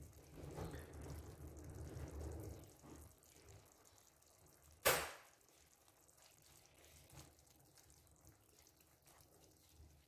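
Faint wet bubbling and sizzling of chicken pieces, tomato and spices cooking in their juices in a frying pan, fuller in the first few seconds. One sharp click about five seconds in.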